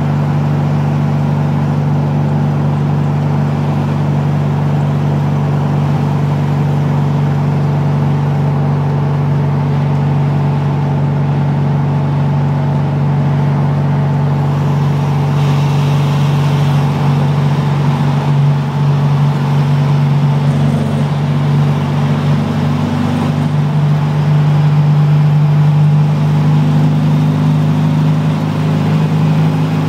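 1961 VW Splitscreen van's brand new 2110cc air-cooled flat-four engine running steadily at cruising speed, heard from the cab. It grows a little louder in the second half as the van drives into a road tunnel.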